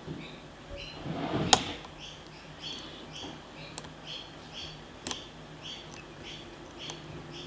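Lock picks working the pins of a pin-tumbler challenge lock: light scraping and small metallic clicks, with a sharp click about one and a half seconds in after a short scrape. A soft high chirp repeats about twice a second behind it.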